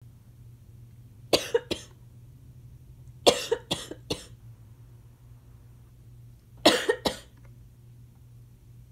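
A person coughing from asthma in three short fits: two coughs, then four, then three, each cough sharp and brief.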